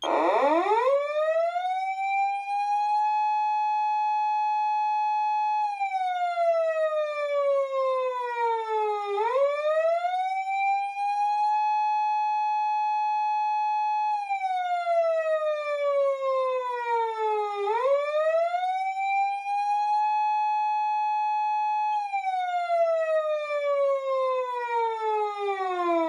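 Patlite SAP-500BWZ-G electronic siren amplifier sounding the police-car wail on its 8-second cycle, starting abruptly: the tone rises over about three seconds, holds steady, then falls slowly, three times over.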